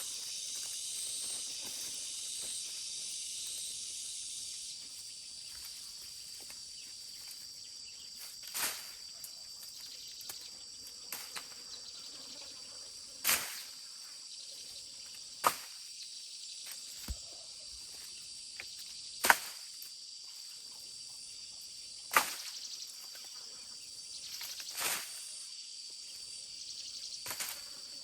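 Steady high-pitched drone of insects, a little louder in the first few seconds, with about seven sharp knocks or strikes at irregular intervals a few seconds apart.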